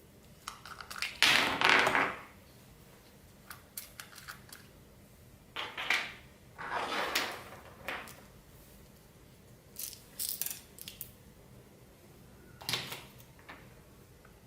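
Clear slime with plastic beads mixed in, being handled: bursts of clicking and crackling as the beads rub and click together in the slime. The loudest burst is about a second in, with several shorter ones after it.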